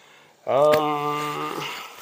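A man's drawn-out, level-pitched "hmmm" held for about a second, with a light click partway through. It is followed by soft rustling of backpack fabric as he reaches into the pack.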